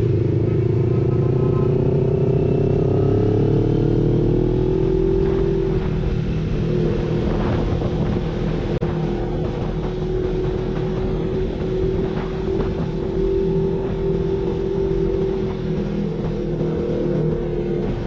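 CFMoto 400NK motorcycle's parallel-twin engine running under way, heard from the rider's position. Its pitch climbs gently over the first few seconds, then holds steady.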